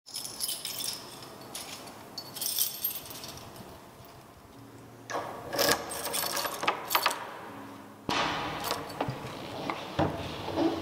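A bunch of keys jangling, then a key sliding into a door's cylinder lock and turning, with sharp metallic clicks and rattles from about halfway through.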